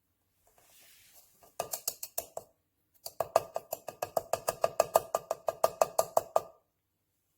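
Sharp mechanical clicks: about six, then after a short pause a rapid, even run of about eight clicks a second lasting some three seconds, each with a slight ring.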